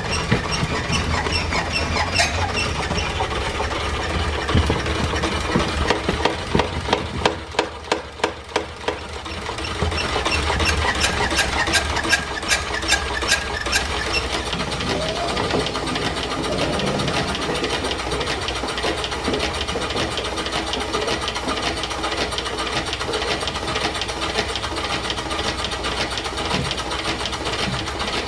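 Small duplex steam pump running under steam, its pistons clicking and knocking in a steady rhythm. From about six to fourteen seconds in, sharp knocks come about twice a second, then the running settles to a steadier clatter.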